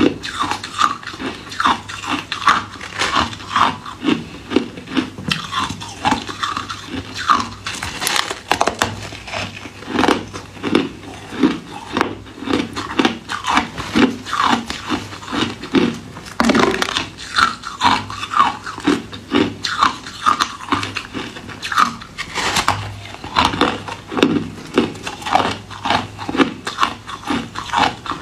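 A person biting and chewing ice, with a steady run of loud crunches, about two or three a second.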